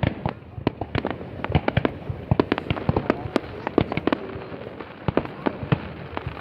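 Fireworks going off in a dense, irregular run of sharp bangs, several a second, over a constant background haze of more distant bursts.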